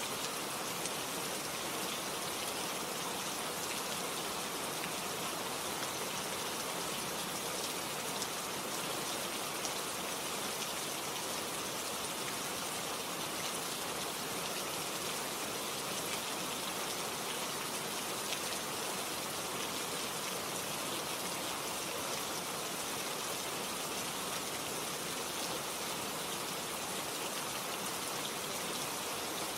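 Steady rain falling, an even continuous hiss from a relaxing rain-sound track.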